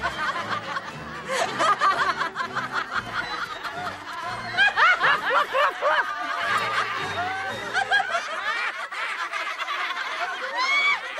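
A flock of talking sheep laughing and snickering at once, many overlapping voices, over background film music whose low notes drop out near the end.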